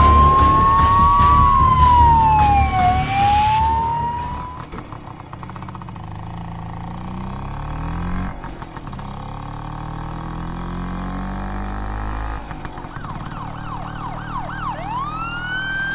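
Police siren wailing slowly up and down over background music with a steady beat; after about four seconds the siren drops away, leaving a lower drone. Near the end the siren comes back in quick up-and-down yelps and then a long rising wail.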